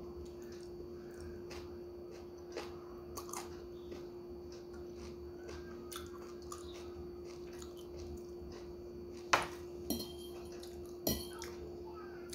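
Chewing and small mouth sounds of someone eating pancit noodles, with fork clinks against a plate; the three loudest, sharpest clinks come close together about three-quarters of the way through. A steady hum runs underneath.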